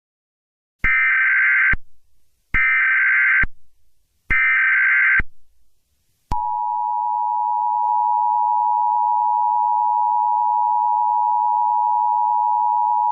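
Emergency Alert System tones: three short bursts of warbling SAME header data, each about a second long, then about six seconds in the steady two-tone EAS attention signal begins and holds. This is the preamble that announces an emergency alert broadcast.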